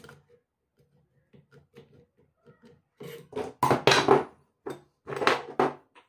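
Metal parts and a screwdriver being handled on a workbench: faint light clicks at first, then two louder bouts of scraping and clattering about three and five seconds in.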